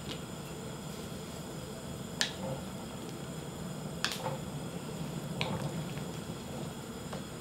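A spoon stirring soup in an enamelled pot, knocking sharply against the pot three times, about two, four and five and a half seconds in, over the steady low rumble of the soup boiling on a portable gas burner.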